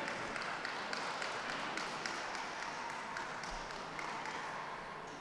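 An audience applauding, a dense patter of many hands clapping that thins out near the end.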